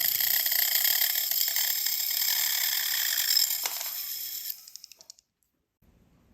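Rotary tool with a cutoff disc cutting metal wire: a loud, high hiss that starts suddenly, runs about four and a half seconds, then fades out.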